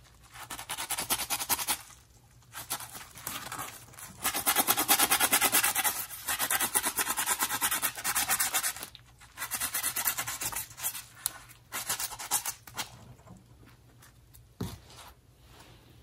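Scrub Daddy sponge scrubbing corrosion off the threaded end of a kitchen faucet's pull-out spray head, in quick back-and-forth bouts broken by short pauses. The scrubbing dies away over the last few seconds.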